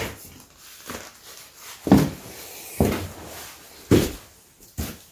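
Four dull knocks about a second apart: the new rear main seal flange on a VW ALH TDI engine being tapped onto the back of the block while it is hung up on a dowel pin on one side.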